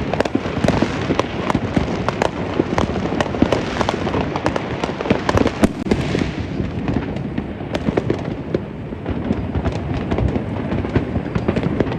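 Many fireworks and firecrackers going off together all around: a dense, continuous crackle of bangs and pops, slightly thinning out in the second half.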